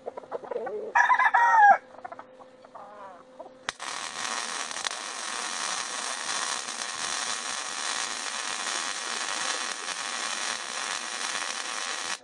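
A rooster crows once about a second in, the loudest sound here. From about four seconds in a wire-feed welder's arc crackles steadily as it lays a weld on the steel smoker body, then cuts off suddenly at the end.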